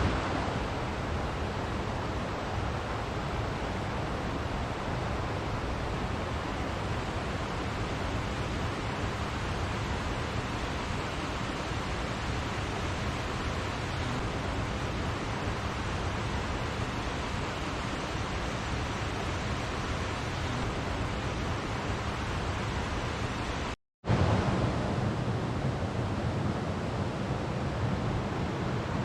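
Steady rushing of a waterfall and river, an even roar of falling and flowing water. Near the end it drops out for a split second and comes back with a deeper, fuller rumble.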